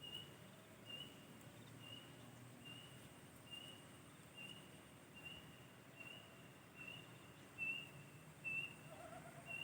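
A small animal repeating a short high chirp, evenly about once a second, over faint outdoor hiss. A couple of soft bumps near the end.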